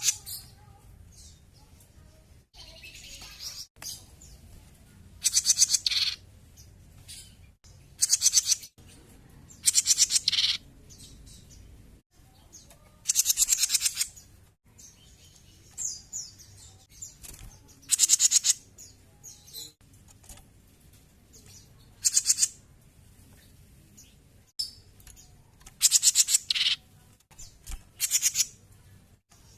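Cucak jenggot (a bulbul) calling in short, rapid pulsed phrases high in pitch, about one every two to four seconds, in a bout of active singing.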